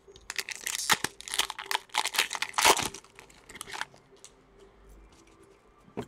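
Crinkling of a foil or plastic wrapper as trading card packs are handled, busy for the first four seconds or so, then only a few faint ticks.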